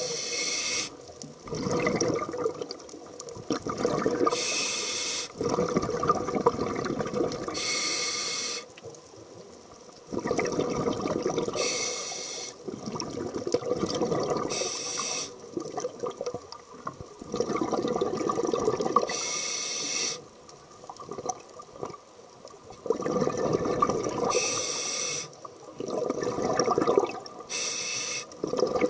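Scuba diver breathing through a demand regulator underwater, heard through a camera housing. Each breath is a short hiss of inhalation followed by a longer gurgling rush of exhaled bubbles, repeating every three to four seconds.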